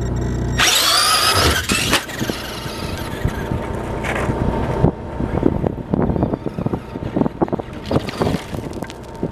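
Radio-controlled short-course truck speeding off across rocky dirt: its motor whine climbs in pitch as it accelerates, with a dense crackle of gravel and dirt under the tyres. The whine rises again about four and eight seconds in.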